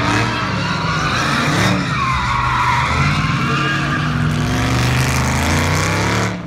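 Dodge muscle car's V8 engine running hard under throttle while its tyres squeal steadily through a drift. The engine note rises and falls, the squeal wavers in pitch, and both fade a little near the end.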